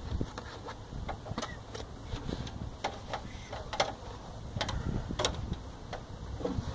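Irregular clicks and light knocks of electrical cable and hands against a metal Square D breaker panel while the stove-circuit wire is worked into it.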